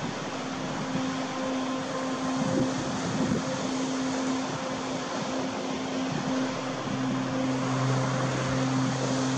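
Steady rush of ocean surf and wind, with faint low steady tones over it; a lower tone joins about seven seconds in.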